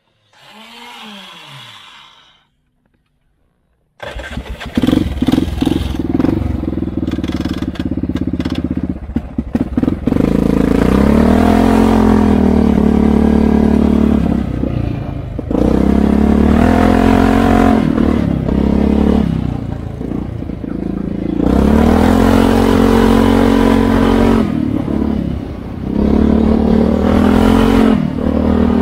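ATV engine being ridden, starting suddenly about four seconds in and revving up and down over and over. Before it there is only a faint short sound.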